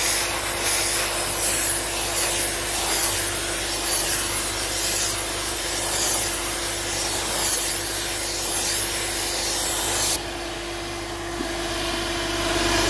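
Suction-fed sandblasting gun firing abrasive media at a dryer part: a loud, harsh hiss that cuts off abruptly about ten seconds in, leaving a steady motor hum.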